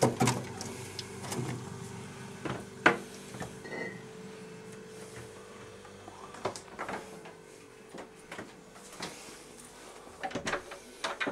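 Scattered knocks and clicks of things being handled in a small room, with one sharp knock about three seconds in and a cluster of clicks near the end, over a steady faint hum.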